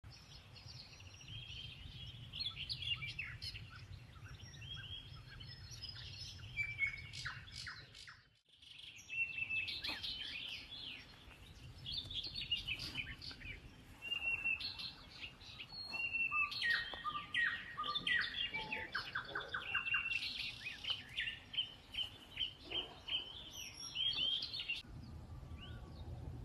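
Songbirds singing and chirping, several voices overlapping in quick high chirps and trills over a low steady rumble. The sound cuts out briefly about eight seconds in, then resumes.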